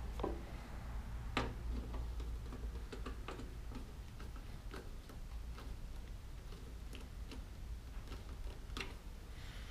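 Small irregular clicks and taps of a screwdriver working a terminal screw and wires being handled inside an electric heater's sheet-metal wiring box, over a faint steady low hum.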